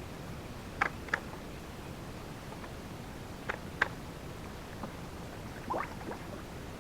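A few short, light clicks and knocks from the plastic skimmer bracket being handled and adjusted on the pool wall: two about a second in, two more a few seconds later and a small cluster near the end, over a steady background hiss.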